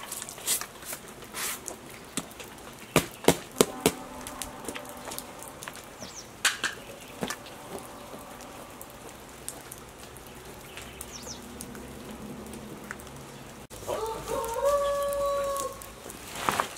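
A chicken calling: one drawn-out call with a steady pitch about fourteen seconds in, the loudest sound. Earlier, scattered sharp clicks and knocks, several close together about three to four seconds in.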